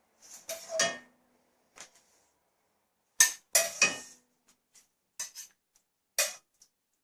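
A serving utensil clinking and knocking against a pot and a bowl as soup and noodles are scooped out: a series of separate sharp clinks with brief ringing, loudest in a quick group about three seconds in.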